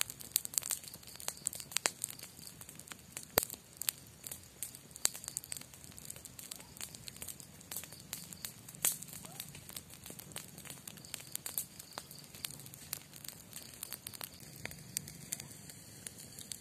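Campfire crackling, with irregular sharp pops and snaps, several a second at first and thinning out toward the end.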